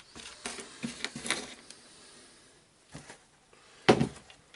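Light clicks and knocks of small metal screws, tools and plastic housing parts being handled on a workbench during reassembly of a cordless jigsaw, with one sharper knock near the end.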